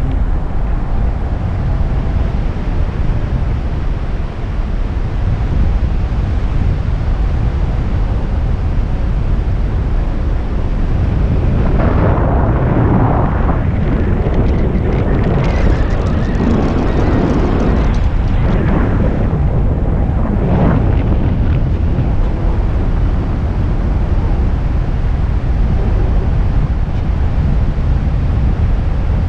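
Wind buffeting the microphone of a camera on a paraglider in flight: a steady low rumble, with a stretch of louder, hissier gusts in the middle.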